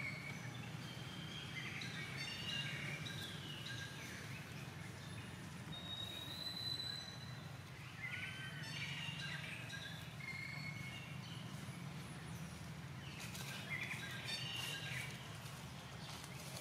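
Outdoor ambience: scattered short, high-pitched chirps and squeaky animal calls over a steady low hum, with a few clicks near the end.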